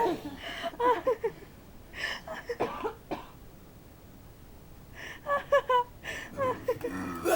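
A person's short non-speech vocal sounds in several brief bursts, with a quiet gap of about two seconds in the middle.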